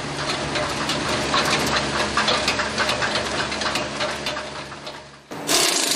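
Small VST tractor's diesel engine running with a steady drone and rapid clatter. It fades out and, a little over five seconds in, cuts abruptly to a steady high hiss.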